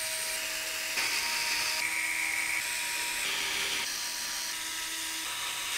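Small electric screwdriver whirring steadily as it drives the motherboard's mounting screws into the case standoffs, its pitch shifting several times.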